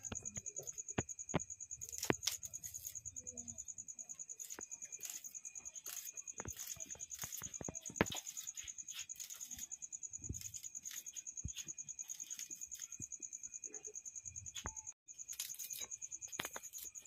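A cricket trilling steadily at a high pitch, with scattered sharp clicks and taps as an onion is peeled and sliced over a steel plate; the loudest click comes about eight seconds in.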